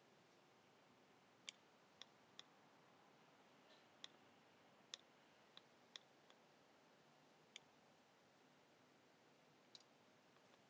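Near silence with about ten faint, sharp clicks at irregular intervals over a low background hiss.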